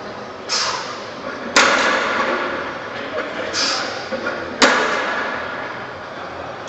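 Heavily loaded barbell set down on the gym floor between deadlift reps, a heavy clank that rings and dies away slowly, twice about three seconds apart, each preceded by a short hiss.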